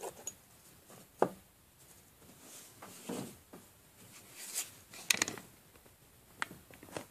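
Handling of small metal engine parts, a piston and connecting rod, set down on a paper towel over a wooden bench: scattered clicks and light knocks with some rubbing. The sharpest click comes about a second in, and a quick cluster of clicks about five seconds in.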